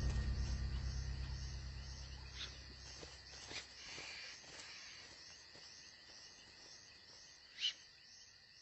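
Soundtrack music fades out over the first three seconds, leaving a night chorus of crickets chirping in a steady pulse of about three chirps a second, with a few brief sharp high calls.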